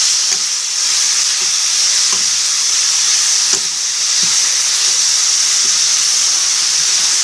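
Chopped garlic, onion and green onion frying in hot oil in a pan, a steady sizzle.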